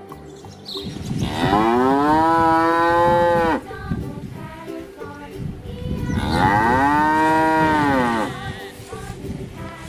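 Cattle mooing: two long moos a few seconds apart, each rising and then falling in pitch.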